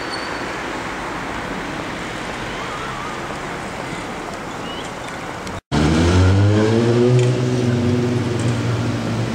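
Steady outdoor traffic noise. After a sudden cut about two-thirds of the way in, a louder, low, steady engine drone takes over, its pitch drifting slightly.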